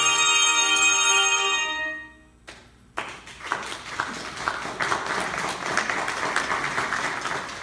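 Handbells ringing a held final chord that dies away about two seconds in; after a short pause an audience applauds.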